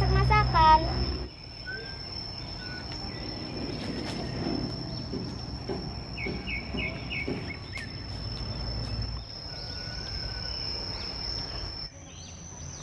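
Insects trilling steadily on one high, even tone, with a quick run of about five chirps a little past the middle.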